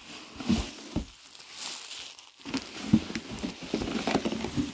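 Bubble wrap crinkling and crackling as a bubble-wrapped bundle of fan grilles is pulled out of a cardboard box, with a few soft knocks along the way.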